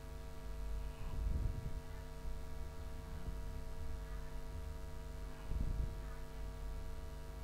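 Steady electrical mains hum picked up by the recording, made of several steady tones stacked one above another. It is broken twice by a brief low rumble, about a second in and again about five and a half seconds in.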